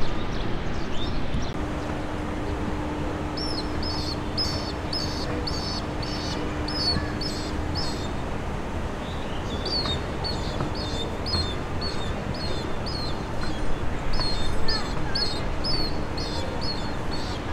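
A bird calling in a quick series of short, high chirps, about two a second, in two runs with a pause between them, over a steady low rumble.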